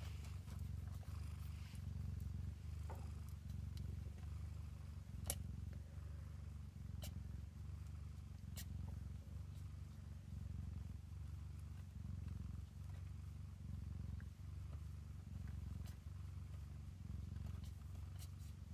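Domestic cat purring steadily, the low rhythmic purr of a mother cat nursing her kittens while having her head scratched. A few faint clicks about five, seven and eight and a half seconds in.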